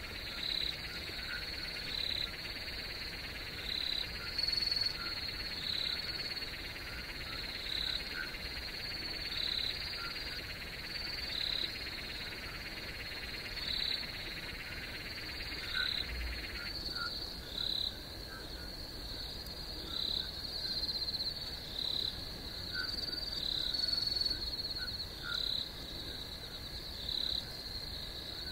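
Night chorus of crickets and frogs: a steady high trill with a short chirp repeating about once a second, and small calls underneath. A hissing layer of the chorus cuts off suddenly a little past halfway.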